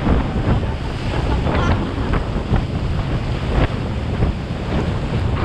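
Wind buffeting the camera microphone over rushing, spraying water as an inflatable banana boat is towed at speed over choppy sea, with scattered splashes throughout.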